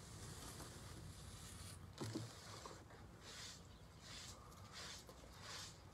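Sidewalk chalk rubbed across a concrete walkway: a series of faint, short scraping strokes, coming roughly every half second to a second in the second half, with a soft thump about two seconds in.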